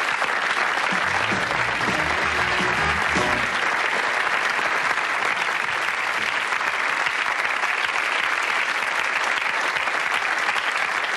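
Studio audience applauding steadily, with a short run of low instrumental notes from about one to three and a half seconds in.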